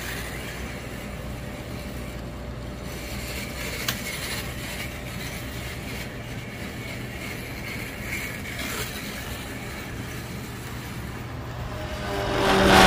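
A 1/24-scale slot car running on a plastic slot-car track: a steady sound of its small electric motor and gears over a low hum, with a single click about four seconds in. Music comes in near the end.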